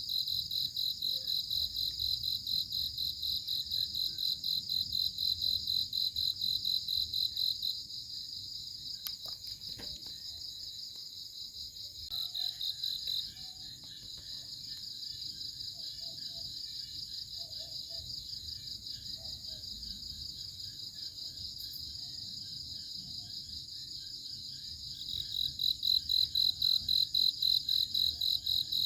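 Crickets chirping in a fast, steady pulsed trill. The trill is loud at first, drops quieter a few seconds in, and comes back loud near the end.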